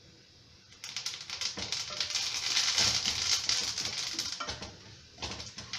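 Curry leaves spluttering and crackling as they go into a little hot oil in a kadhai. The crackle starts about a second in, is dense for about three seconds, then thins to scattered pops.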